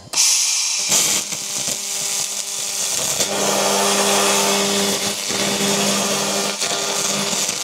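The rust-removal head of an xTool MetalFab 1200 W laser cleaner, at full power, ablating paint off a car wing in a steady high hiss that starts straight after the countdown. A low steady hum joins about three seconds in. The pass strips the paint and primer down to bare metal.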